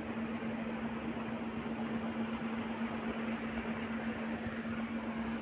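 Steady mechanical hum with one constant low tone and a soft even hiss, unchanging throughout.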